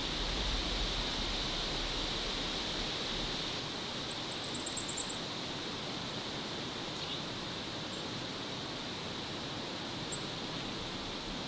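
Forest ambience: a steady hiss with a low rumble that fades out about three seconds in. About four seconds in, a small bird gives a quick run of about eight high chirps, followed by a few single high chirps later.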